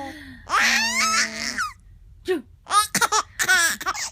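Five-month-old baby vocalising: a long high squeal starting about half a second in, then a run of short laughing bursts near the end.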